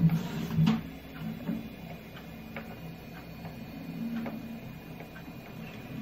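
Light, scattered clicks and ticks of a dental syringe's tip working against a skateboard ball bearing as grease is squeezed into it, with a short hiss at the start.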